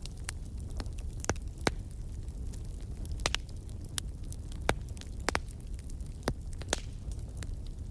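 Wood fire crackling, with irregular sharp pops scattered over a steady low rumble.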